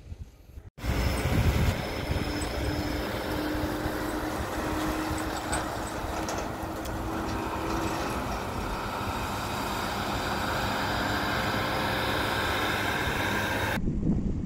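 Road vehicles running, with truck engine and road noise forming a steady mix. It starts abruptly about a second in and cuts off suddenly near the end.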